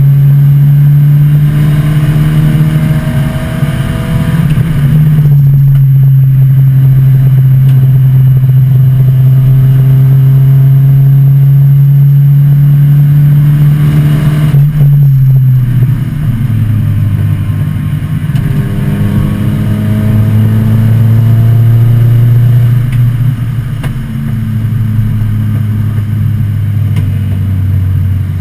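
A 1986 Volvo 245 race car's engine heard from inside the cabin at speed. Its note holds steady, falls in pitch about halfway through, climbs slowly again, then falls once more near the end as the driver lifts for the corners.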